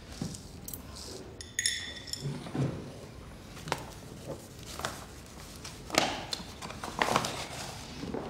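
Scattered handling sounds and footsteps: a short metallic ring about one and a half seconds in, then knocks and rustling as a pistol is lifted off a wooden floor and slipped into a paper bag.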